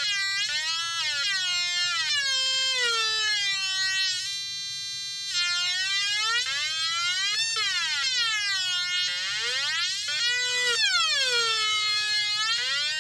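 Atari Punk Console, a two-555-timer square-wave synth played through a small loudspeaker: a buzzy tone rich in overtones, swooping up and down in pitch as its knobs are turned. It holds one steady pitch for about a second near the middle.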